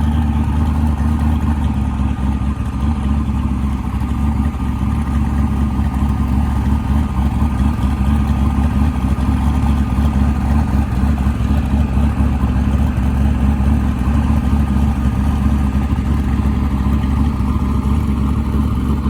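Car engine running steadily, with a deep, loud rumble.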